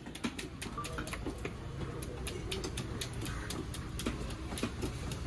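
Busy fish-market stall: frequent sharp, irregular knocks, typical of knives and cleavers striking wooden cutting blocks, over a steady low rumble of background noise.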